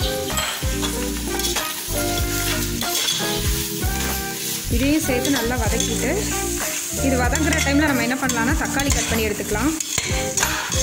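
Sliced onions, bay leaves and whole spices sizzling in oil in an aluminium pressure cooker, stirred with a perforated metal spoon that scrapes against the pot. A wavering pitched tone sounds in the background from about five seconds in.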